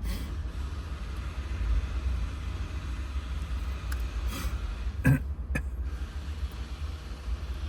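Steady low rumble, with a few sharp metallic clicks from the lock being handled about four and five seconds in.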